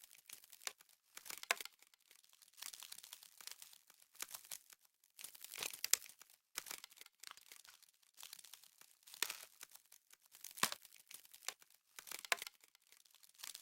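Dry, irregular crackling and crinkling in quick clusters every second or so, crisp and high-pitched, offered as the sound of frost.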